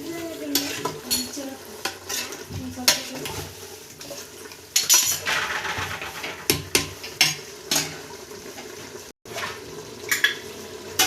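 A metal spoon stirring in a cooking pot, scraping and clinking irregularly against the pot, as ground masala paste is mixed into chicken frying with a light sizzle. About five seconds in, the sizzle grows louder for a second or so.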